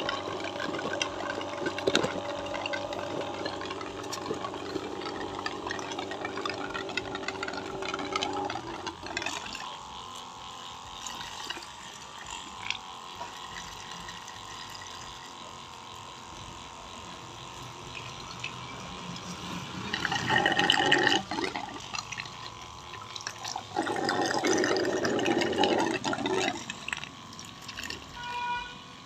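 12 V battery sprayer pump motor running with a steady hum while water rushes through the pump. The hum stops about eight seconds in, leaving quieter water noise with two louder rushes of water later on.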